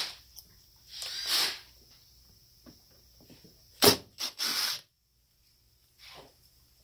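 Cordless driver run in short bursts against the screws of a Mikuni carburetor's fuel assist pump cover, with a sharp click just before the bursts about four seconds in and another short run near six seconds.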